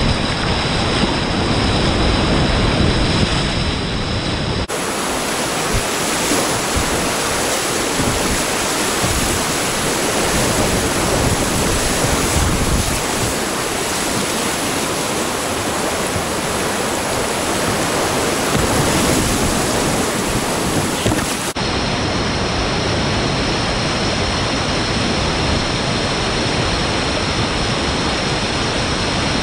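Loud rushing whitewater of creek rapids and falls, a steady dense noise. Its tone shifts abruptly twice, about 5 and 21 seconds in.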